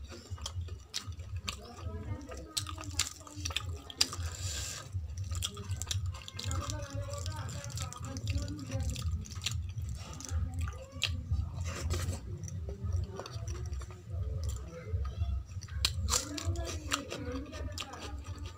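Close-miked wet chewing with lip smacks and mouth clicks, along with squelching as fingers mix rice into the kadhi on a steel plate, over a steady low hum.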